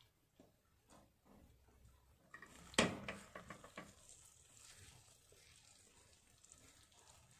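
Hand scooping and squeezing sticky jaggery-coated puffed rice in an iron kadai, a faint crackly rustle. There is a sharp knock about three seconds in, followed by a few lighter clicks.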